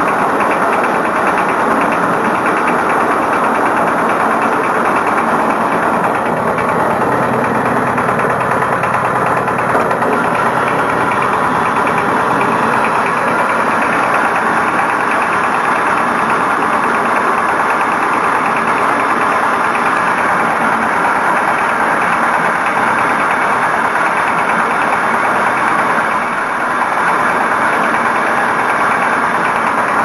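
Diesel engine of a concrete mixer running steadily with a fast, even chug.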